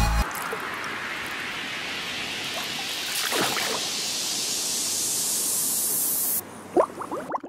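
Steady rushing, water-like noise that grows gradually brighter and cuts off suddenly about six seconds in. Near the end comes a quick run of short bubbling plops.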